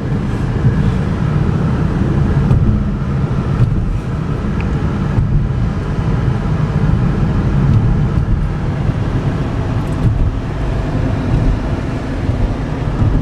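Inside the cabin of a 2011 Chevy Equinox driving on the road: a steady, even low rumble of tyre and road noise mixed with its 2.4-litre four-cylinder engine running.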